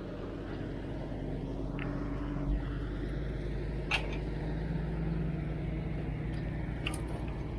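A motor vehicle's engine running steadily, with a faint hum that rises a little in pitch midway. A few light clicks are heard over it.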